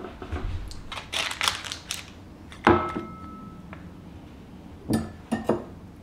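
Crusty focaccia torn by hand, crackling for the first two seconds. Then a sharp clink of ceramic dishware with a short ring about halfway through, and two knocks of dishes set down near the end.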